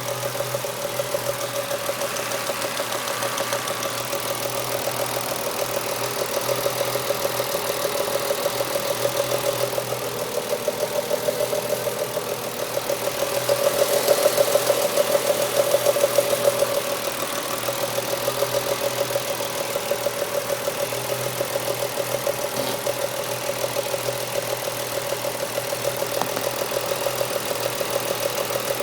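BMW S50B30 3.0-litre straight-six idling while cold, with an even, fast pulsing beat and a noise from the cold engine that the owner is recording; the idle grows a little louder for a few seconds about halfway through.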